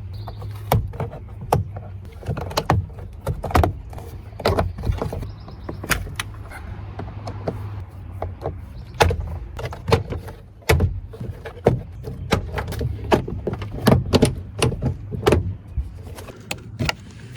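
Irregular sharp rattling clicks over a steady low drone inside the cabin of an Acura Integra Type-S on the move. This is the interior rattle, which the owner traced to the passenger-door metal speaker grille.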